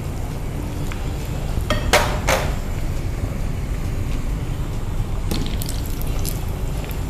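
Moong dal vadas deep-frying in hot oil in a pan over a gas burner, with a steady low rumble underneath. Two short sharp sounds come about two seconds in. Near the end, a wire skimmer scoops in the pan with a few metal clinks.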